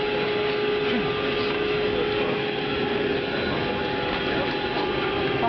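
Steady airliner cabin noise: the engines and air system making an even rumble with a constant whine held on one pitch.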